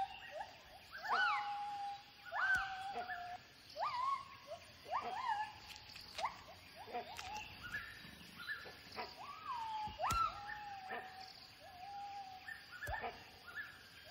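Gibbons calling: a long run of whooping hoots, each swooping up in pitch and then held or falling away, coming about once a second, with calls overlapping as if from more than one animal.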